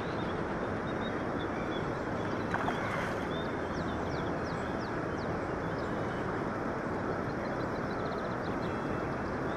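Steady rushing outdoor background noise at a riverbank, with faint high bird chirps through the middle and a single brief click about two and a half seconds in.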